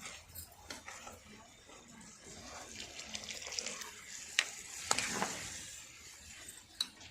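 Water pouring and splashing, with a few sharp clinks.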